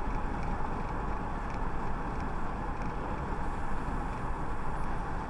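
Car driving on a paved road, heard from inside the cabin: a steady rumble of tyres and engine.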